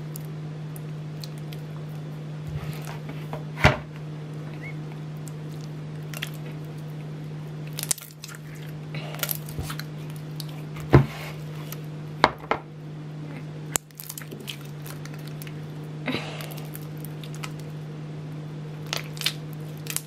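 Hands kneading and squeezing sticky glue-based glitter slime over a plastic bowl, making irregular wet squelches and clicks, with now and then a knock against the bowl. A steady low hum lies under it all.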